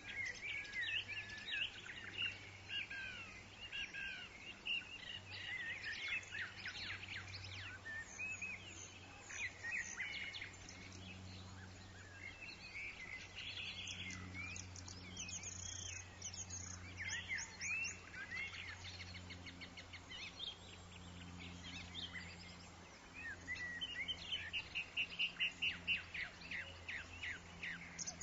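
Several woodland songbirds chirping and singing at once, with quick whistled glides and, near the middle and again near the end, fast runs of repeated notes. A low steady hum of background noise lies underneath.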